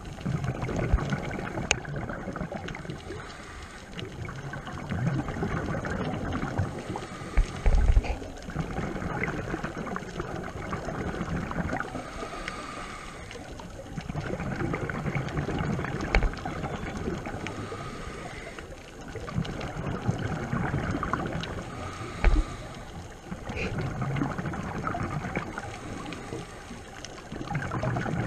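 Scuba diver breathing through a regulator underwater: exhaled bubbles rush and gurgle past the camera housing in repeated swells every few seconds, with quieter stretches between breaths. A few dull low thumps are heard, about a third of the way in, again around the middle, and later on.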